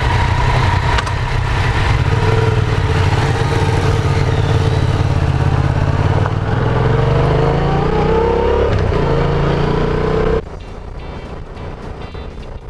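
Motorcycle engine running under way, its pitch climbing steadily from about halfway through as the bike accelerates. Near the end the engine sound cuts off suddenly, leaving a much quieter passage.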